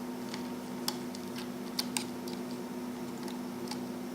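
Scattered light clicks and ticks of a laptop hard drive and its metal cover being handled, sharpest about a second in, twice near two seconds and once near the end, over a steady low hum.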